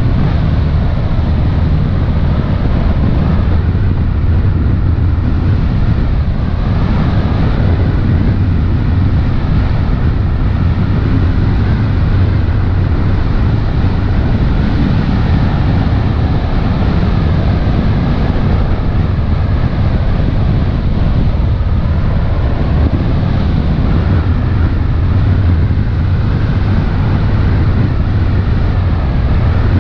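Motor launch under way across open water: a steady low engine rumble mixed with wind buffeting the microphone and the rush of water along the hull.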